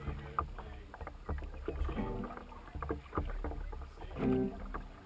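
Wooden rowing boat being rowed with two pairs of oars: irregular knocks and clunks of the oars working in their oarlocks, with blade splashes and water moving along the hull.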